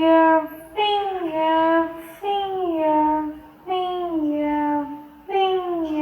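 A high, child-like voice singing the word "finger" over and over. Each two-syllable "fin-ger" falls in pitch, and they come about once every second and a half, four times here.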